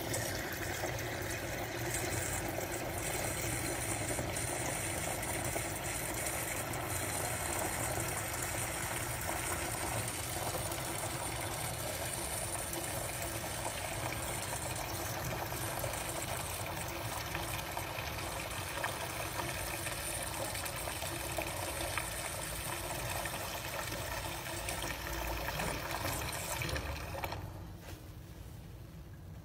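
Water running from a tap into a sink thick with bubble-bath foam, a steady gush that stops near the end.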